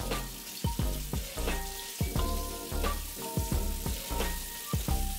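Background music with a steady beat, over the hiss of water running from a kitchen tap.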